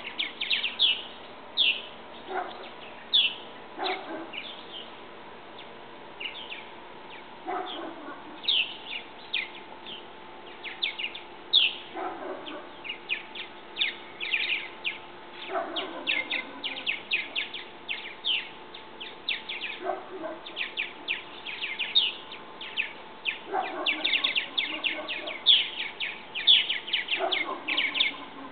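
Purple martins chattering at a martin house: rapid, high chirps throughout, with a lower, coarser call about every four seconds.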